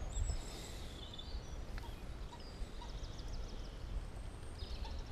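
Outdoor ambience: faint birdsong, scattered high chirps and a short trill about three seconds in, over a low steady rumble.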